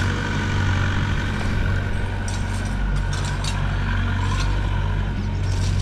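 Wheeled excavator's diesel engine running steadily with a high whine, with a few short scraping sounds about two to three seconds in.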